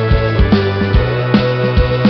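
Background music with a steady drum beat under sustained instrument tones.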